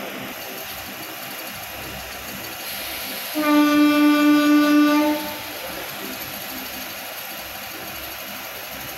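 MEMU electric train's horn sounding one steady blast of about two seconds, about three seconds in, over the steady running noise of the moving train.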